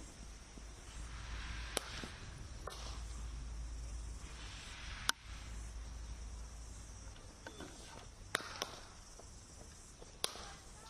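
Cricket bat striking balls in the practice nets: about six sharp cracks, the loudest near the middle and two in quick succession about two-thirds of the way through, over a steady hiss.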